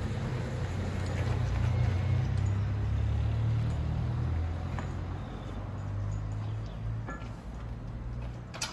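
Low rumble of a motor vehicle's engine that swells over the first few seconds and then eases off, with a few light clicks near the end.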